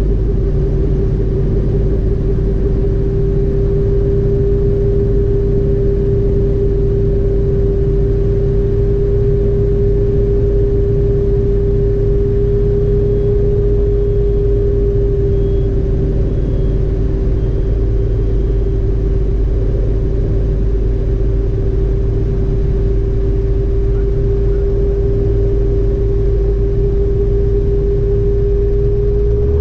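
Robinson R22 helicopter heard from inside the cockpit during a straight-in autorotation: the rotor turns freely with the engine throttled back to idle, giving a steady loud drone with a steady whine over it. The low drone shifts at the very end as the helicopter nears the ground.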